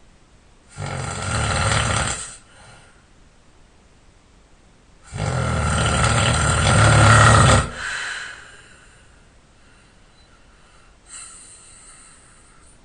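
A sleeping person snoring: two long snores a few seconds apart, the second one longer, then a much fainter breath near the end.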